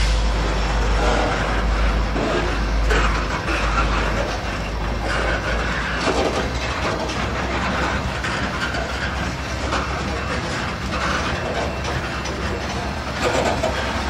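Freight train's covered hopper cars rolling past, steel wheels on the rails making a steady rumble with clacks over the rail joints every few seconds.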